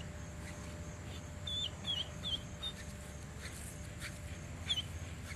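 German shepherd whining in short, high-pitched squeaky whines, about four in quick succession a little over a second in and one more near the end: the eager whining of a dog held in a down while the decoy approaches.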